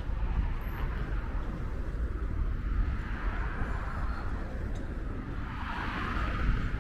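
City street traffic: a steady low rumble of vehicles, with one vehicle passing and growing louder near the end.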